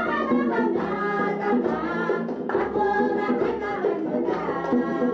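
Women's voices singing a folk song together over instrumental accompaniment.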